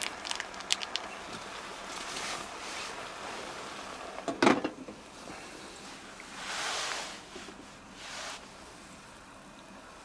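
Light clicks and taps as tofu is slid from its plastic tray into a pot. About four and a half seconds in comes one loud clunk with a short ring, the glass lid being set on the metal pot.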